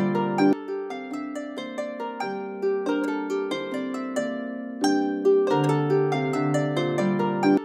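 Background music of gentle plucked-string notes, harp-like, in a repeating melodic phrase that starts over about five seconds in.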